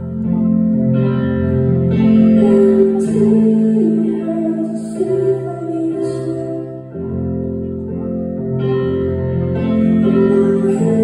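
Live keyboard music: slow sustained chords on an electric piano with a man's voice singing over them, played through a concert hall's PA.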